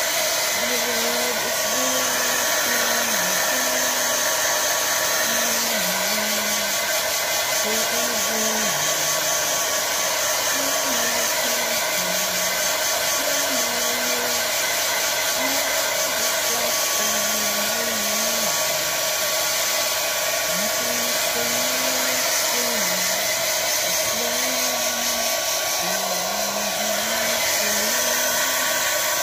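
Handheld hair dryer running steadily, blowing a continuous rush of air over a small dog's coat.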